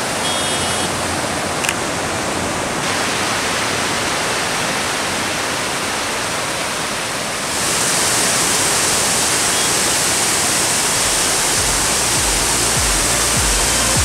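Mountain waterfall and stream rushing steadily over rocks. About seven and a half seconds in it becomes louder and brighter, as the sound shifts to a close cascade of white water.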